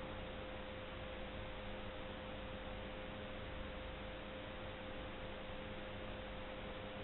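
Steady background hiss with a constant, unchanging electrical whine and a fainter low hum underneath.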